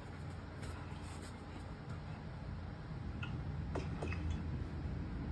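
A low steady room hum with a few faint ticks about three to four seconds in, from a dog moving at a wire pet cage.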